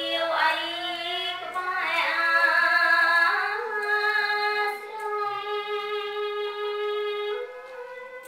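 A woman's solo voice singing smot, Khmer Buddhist chanted verse, in long drawn-out notes that slide and waver between pitches. From about four seconds in, one note is held steady for some three seconds before the voice steps up to a higher note near the end.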